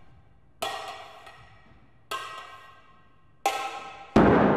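Three sharp struck hits about a second and a half apart, each ringing briefly and dying away, then a much louder, deeper crash near the end that dies away slowly.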